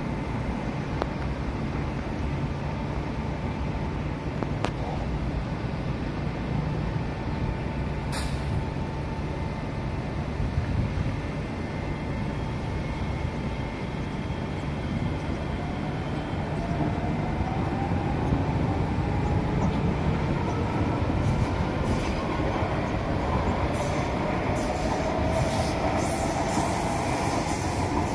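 SMRT C151A metro train pulling away from an elevated station. A steady running noise is joined about halfway through by a whine that rises in pitch as the train picks up speed, with a few short clicks near the end.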